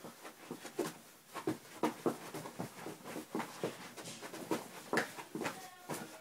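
Feet stepping, hopping and shuffling on a carpeted floor through a dance routine: an uneven string of soft thuds and scuffs, about three a second.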